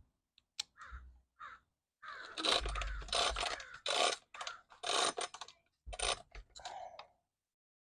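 A Honda Express NC50 moped being cranked over without starting, to test for spark: a series of short, uneven rasping and clattering strokes, some with a dull thump, coming thick and fast from about two seconds in. The engine does not fire.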